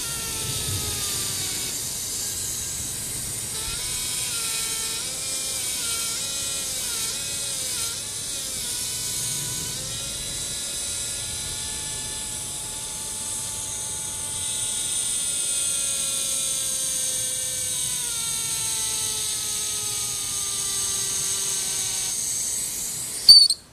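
A hose giving a siren-like wailing tone over a steady hiss, its pitch wavering up and down and then sliding down in long slow glides. It cuts off with a sharp knock near the end.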